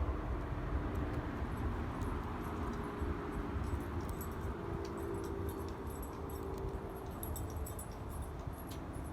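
Steady background hum of vehicle traffic, with faint high-pitched ticks from about four seconds in.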